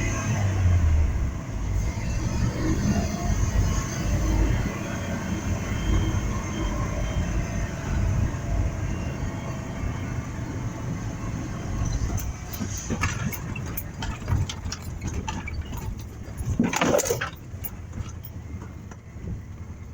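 Logging truck's engine running as it drives, a steady low rumble. Short rattles and knocks join in during the second half, with a louder clatter a little before the end.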